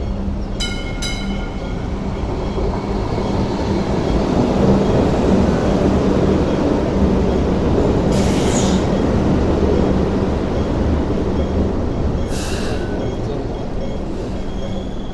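Hong Kong Light Rail trains running through a level track crossing, two passing each other: a steady rumble of wheels on rail with a low motor hum, swelling louder in the middle. Two short high-pitched bursts come about eight and twelve seconds in.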